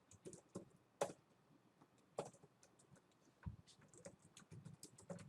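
Computer keyboard typing: scattered, irregular key clicks, a few louder keystrokes among them.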